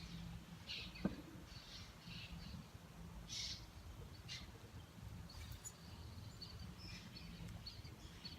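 Faint outdoor ambience: scattered bird chirps over a low rumble of wind on the microphone, with a single sharp click about a second in.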